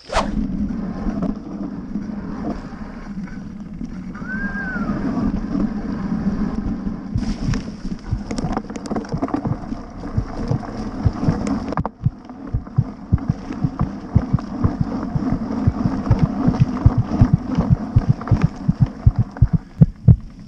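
Mountain bike ridden over a rough dirt trail, heard through a handlebar-mounted camera: steady wind and tyre noise with knocks and rattles from bumps, which come harder and more often in the last few seconds. One short rising-and-falling squeal about four seconds in.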